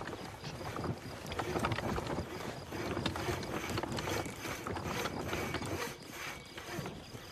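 Busy market clatter: a dense run of small knocks, clicks and rattles, as of wares, crockery and carts being handled, with no clear voices.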